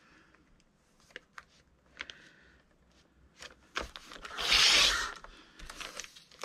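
Paper being handled with a few soft clicks, then a stack of journal pages being cut along the top edge: one noisy cutting stroke lasting about a second, about four and a half seconds in.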